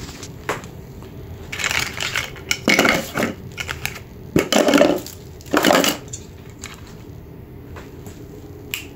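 Rustling and clicking as hands handle a light bar kit's wiring harness and plastic connectors, in several short bursts in the first two-thirds, then quieter handling with an odd click.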